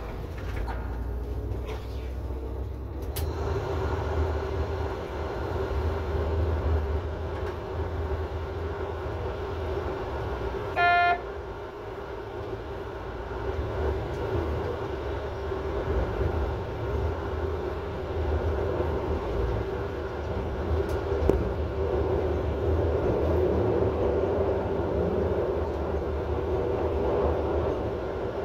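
NordWestBahn regional train running, heard from inside its rear driver's cab: a steady low drone with a hum. About eleven seconds in, one short, loud tone sounds.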